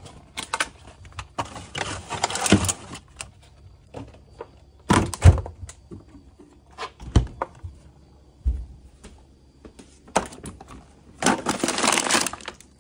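Plastic bags rustling and items knocking against refrigerator shelves while things are cleared out of it, with a few dull thunks in the middle. Near the end comes a longer rustle as rubbish is pushed into a plastic-lined kitchen bin.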